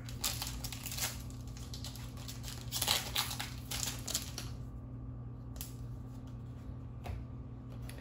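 Foil booster pack of trading cards being torn open and crinkled by hand, in irregular rustling bursts, followed by the softer slide and flick of the cards being handled.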